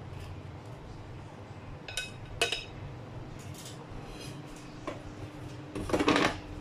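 Chopsticks clinking against a ceramic plate and the air fryer basket as fried chicken meatballs are picked up, with two sharp ringing clinks about two seconds in. Near the end comes a louder, longer scraping clatter as the air fryer basket is handled.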